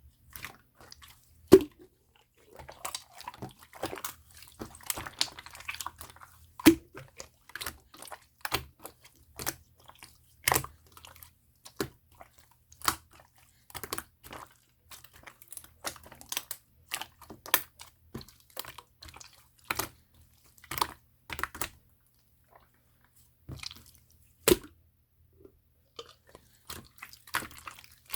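Opaque slime being squeezed and folded by hand, giving irregular sharp sticky clicks and pops, sometimes several in quick succession.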